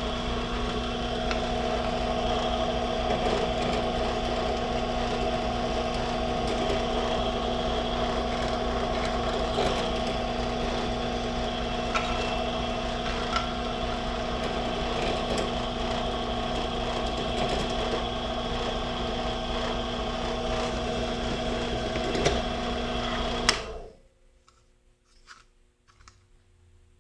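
Electric drill motor running steadily at a constant pitch, then cutting off suddenly about 24 seconds in, followed by a few faint clicks.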